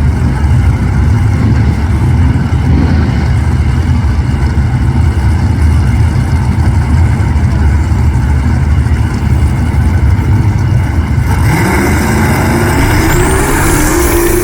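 Drag-racing engines rumbling heavily at the starting line, then about eleven seconds in a turbocharged engine revs hard with a steeply rising pitch and a high rising turbo whistle as a car launches down the track.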